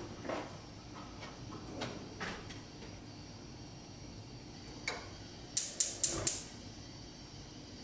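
Gas range burner igniter clicking, four sharp ticks in quick succession, about four a second, lighting the burner. A few soft knocks of cookware come before.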